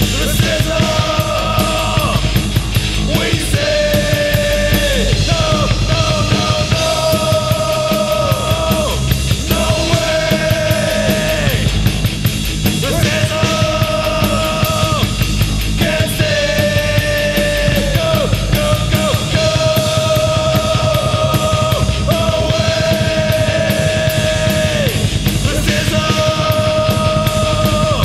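Thrash/heavy metal band recording: distorted guitars and fast drums with busy cymbals, under a melody of long held notes that change every second or two.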